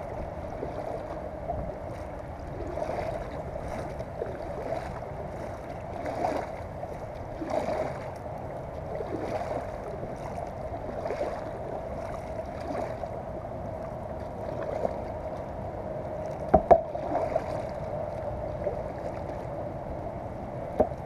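Double-bladed kayak paddle stroking through the water, with a soft splash about every one and a half seconds over a steady faint hum. Sharp knocks come near the end.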